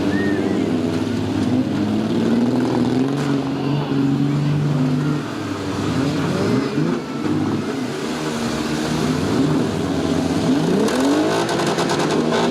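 Several demolition derby car engines running at once, some holding a steady note while others rev up and down, their pitches rising and falling over one another.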